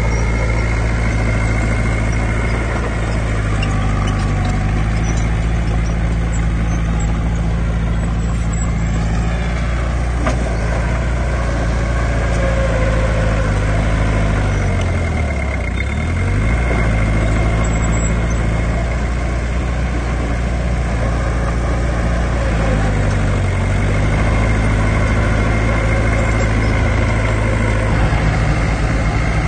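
Heavy diesel earthmoving machine running steadily, with a high whine above the engine. About halfway through the engine pitch sags sharply and recovers, and it dips again briefly later.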